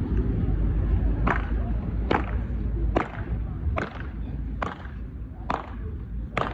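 Sharp knocks repeating at an even pace, a little more than one a second, over a steady low street rumble that eases off about halfway through.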